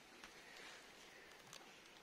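Near silence: faint outdoor ambience with a couple of soft clicks.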